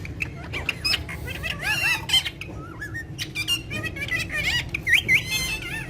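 Alexandrine parrots chattering: a busy string of short squawks and whistled calls that swoop up and down in pitch, with sharp clicks among them.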